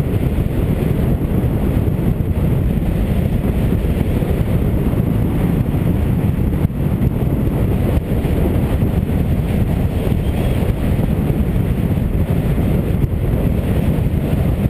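Steady wind buffeting and low rumble on a motorcycle-mounted microphone while riding a Suzuki DR800 at road speed.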